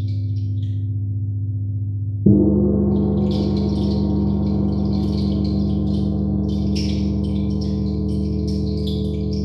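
Large gong struck once about two seconds in, the loudest moment, then a deep, sustained shimmering hum that rings on over the fading ring of an earlier stroke. A light, irregular high metallic shimmer plays above the gong's hum.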